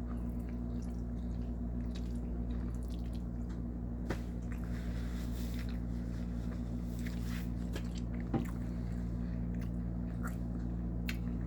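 A man chewing a mouthful of chicken spaghetti: soft wet squishing and small mouth clicks, on and off, over a steady low hum.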